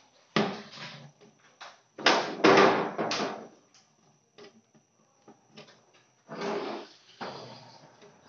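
Hard plastic scraping and rubbing in several irregular bursts, loudest about two to three seconds in, as a blue PVC pipe is handled, twisted and pushed into its adapter fitting and wiped with a cloth.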